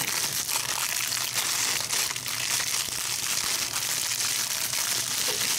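Plastic cracker sleeve crinkling as it is squeezed and shaken, crushed Ritz crackers pouring out onto a casserole, a steady crackle of many fine clicks.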